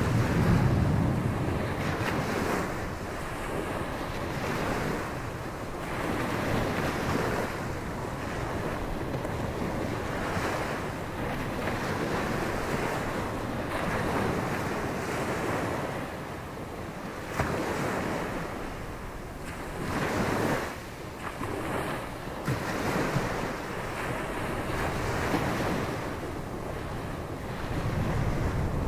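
Ocean surf breaking and washing on a beach, swelling and fading every few seconds, with gusty wind buffeting the microphone.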